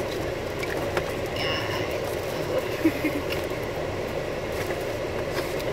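Steady road and engine noise inside a car's cabin, with a brief click about halfway through.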